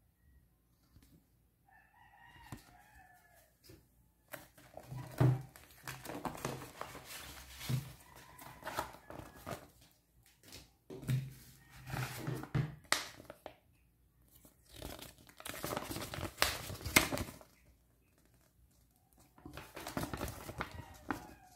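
Paper and plastic packaging being handled on a wooden table: crinkling and rustling in several spells, with a few low knocks, as a holster is unpacked and an instruction sheet is unfolded. A brief faint bird call about two seconds in.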